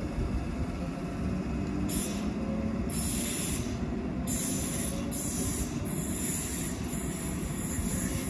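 A pair of Class 320 electric multiple-unit trains running on the track with a steady low rumble. From about two seconds in, bursts of high hiss or squeal from the wheels come and go.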